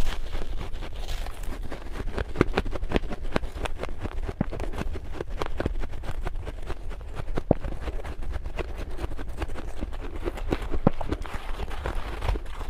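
Close-miked chewing of fluffy freezer frost: crisp crunches and crackles in quick, uneven succession, over a low steady hum.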